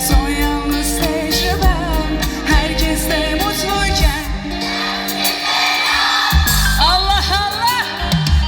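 Live Turkish pop song played through a concert sound system: a winding, ornamented vocal line over steady bass and regular drum hits.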